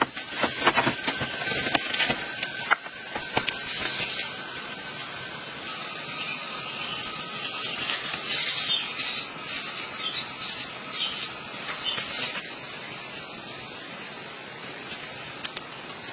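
Rustling and snapping of leaves and twigs as a person moves through forest litter, sharpest in the first few seconds. Then high, rapid chirping calls come in bursts from about eight to twelve seconds in, over a faint steady hiss.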